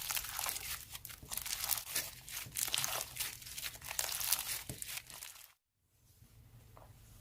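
Slime being squished and stretched by hand, a dense crinkling, crackling sound. It cuts off abruptly about five and a half seconds in, and fainter handling follows.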